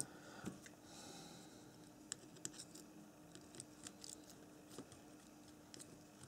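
Faint, scattered clicks and light scraping of needle-nose pliers and small metal valve gear rods on an H0-scale model steam locomotive as a sticking rod is worked into its cylinder. A faint steady hum lies underneath.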